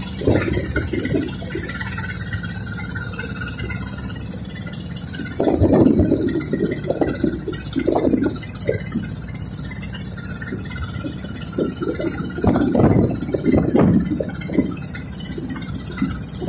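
Boat engine running steadily, with louder irregular bursts about five, eight and thirteen seconds in.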